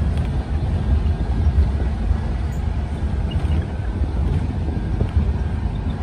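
Steady low rumble of wind buffeting the microphone mixed with the road noise of a vehicle driving along a gravel dirt road.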